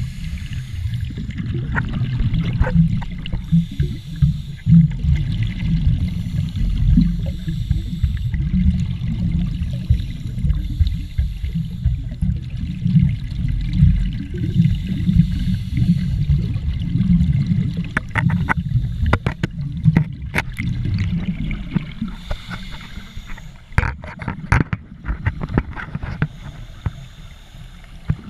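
Scuba divers' regulator exhaust bubbles gurgling underwater, heard muffled and low through a GoPro Hero3's waterproof housing, with clusters of sharp clicks about two-thirds of the way in and again near the end.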